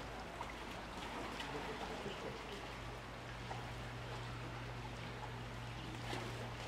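Faint steady running water, with a low steady hum beneath it.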